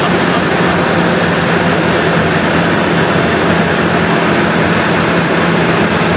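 Steady in-cabin noise of a car cruising at motorway speed: tyre roar and wind noise over a steady low engine hum.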